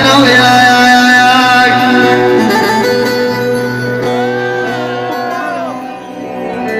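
Instrumental Middle Eastern music between sung lines, with held melodic notes, then a run of short rising-and-falling pitch bends about two-thirds of the way through.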